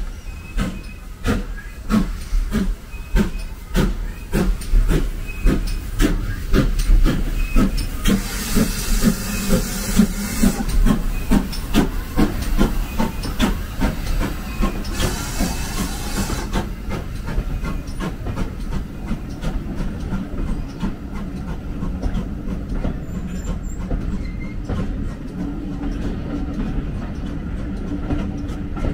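Steam tank locomotive pulling away with its train: evenly spaced exhaust chuffs that quicken from about one a second to several a second, with two spells of loud steam hissing about eight and fifteen seconds in. The chuffs then give way to the steady rumble of the coaches rolling past.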